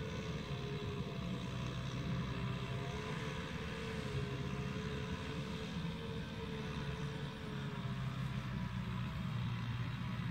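Tractor engine running steadily under load, with a faint whine that wavers slightly in pitch.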